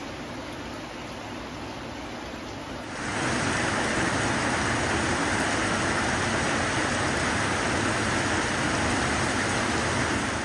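Steady rushing noise with no voices, which jumps louder and brighter about three seconds in and then holds steady.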